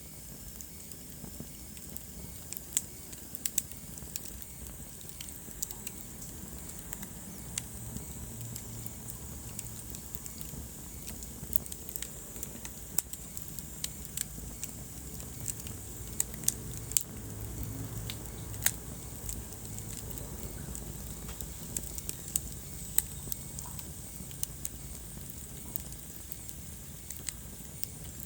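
Wood fire burning in a fireplace: sharp crackles and pops at irregular intervals, a few of them louder snaps, over a steady low rumble of the flames.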